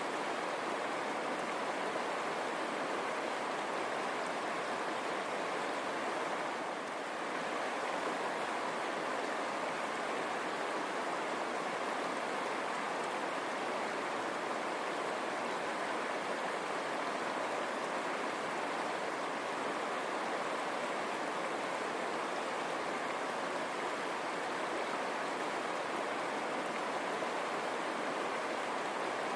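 A river running over rocks, a steady rushing and babbling of water.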